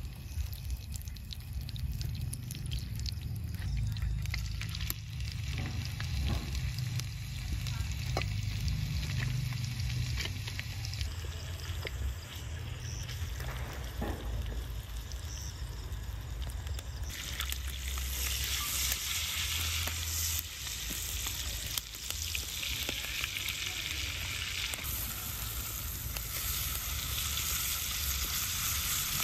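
Food frying in butter in a small rectangular pan over an open wood fire: a steady sizzle that grows much louder about two-thirds of the way through, with occasional clicks and a low rumble underneath.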